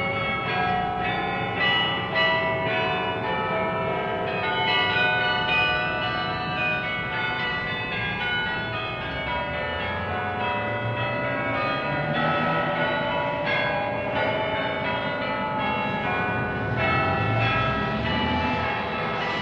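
Church bells ringing a tune, with many strikes overlapping and each tone ringing on. A low rumble lies underneath and swells a little near the middle and again near the end.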